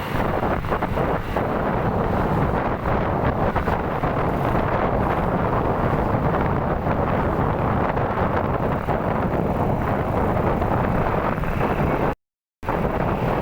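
Wind buffeting the microphone: a steady, loud rushing noise, cut off by a brief dropout about twelve seconds in.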